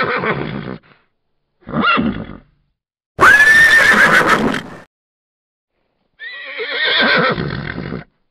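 Horse whinnies in four separate calls with silent gaps between them. The first is already under way, and the third, about three seconds in, is the loudest and longest, sweeping up in pitch as it starts.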